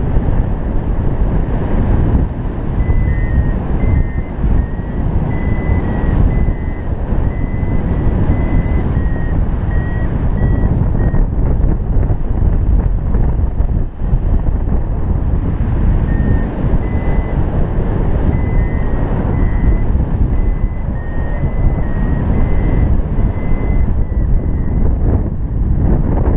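Arduvario ESP32 paragliding variometer beeping short tones about twice a second, in one run from a few seconds in to near the middle and another in the second half, the pitch shifting slightly from beep to beep: the climb tone, sounding while the glider rises in lift. Wind rushing over the microphone runs underneath.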